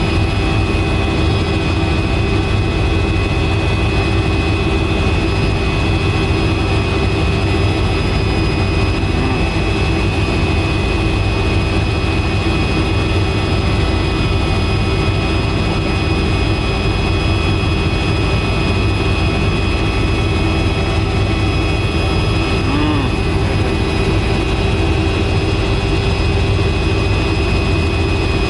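Helicopter in flight heard from inside the cabin: a steady heavy rumble from the rotor and engine, with several steady whining tones on top, unchanging throughout.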